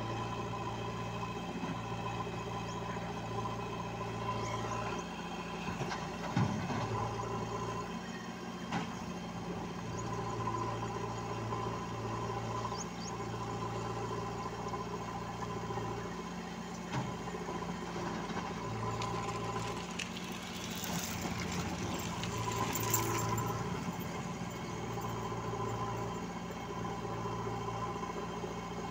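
Diesel engines of a JCB 3DX backhoe loader and a Mahindra tractor running steadily, with a few short knocks and clunks scattered through.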